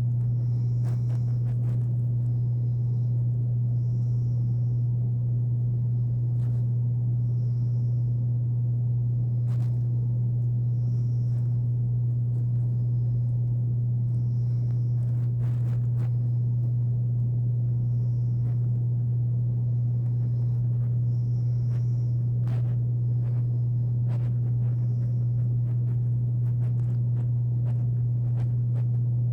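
Air conditioner running with a loud, steady low hum that covers everything else. Faint high chirps repeat about every two seconds, with a few faint clicks; no snoring stands out.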